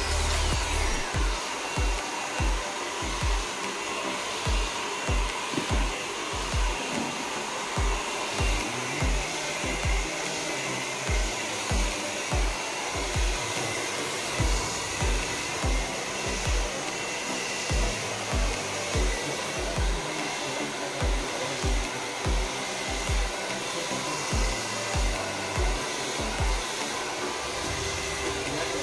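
Hand-held hair dryer blowing steadily, with a faint steady whine in its rush of air. A low, regular beat from background music thumps a little more than once a second underneath and stops shortly before the end.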